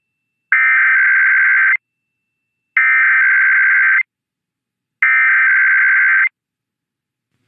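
Emergency Alert System SAME header: three identical bursts of digital data tones, each about a second and a quarter long, with about a second of silence between them. The bursts encode the start of a Required Weekly Test, which carries no attention tone.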